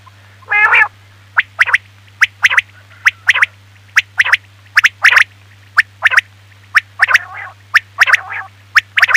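Recorded quail calls of the kind played as a hunting lure: short sharp call notes, mostly in quick pairs about once a second, with a few longer rasping notes, over a steady low hum.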